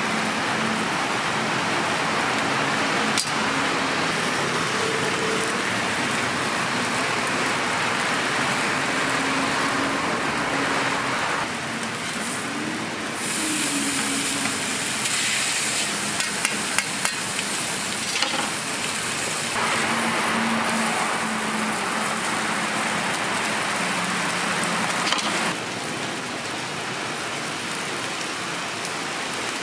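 Egg, ham and corn filling frying on a hot flat-top griddle: a steady sizzle, with a few quick sharp taps, likely a metal spatula on the griddle, a little past halfway.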